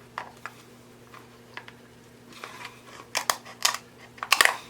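Close-miked eating sounds from a seafood boil: scattered small clicks, then a few louder crackling crunches near the end as food is chewed and handled.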